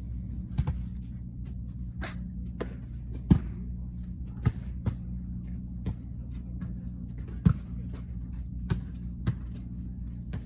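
A cat licking its paw pads: small wet clicks at irregular intervals over a steady low hum, with one short, sharp sneeze about two seconds in.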